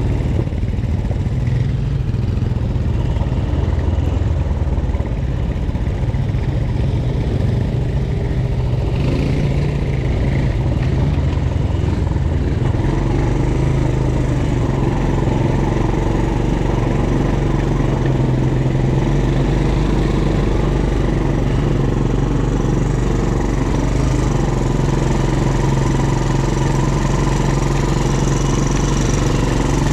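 ATV engine running loud and close, in a steady drone. About twelve seconds in, its note settles into a steadier, more even tone.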